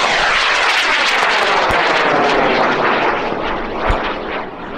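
High-power rocket motor, an Aerotech M650 White long-burn reload, burning under thrust: a loud, steady rushing roar that started abruptly just before and fades gradually as the rocket climbs away.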